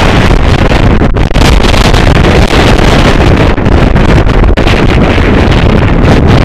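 Strong wind buffeting the microphone: loud, continuous rumbling noise close to the recording's full level, with a few brief dips.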